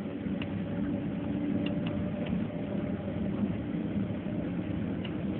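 Airliner cabin noise while taxiing: the jet engines running steadily at low power, heard from inside the cabin as an even drone with a faint hum, and a few faint ticks.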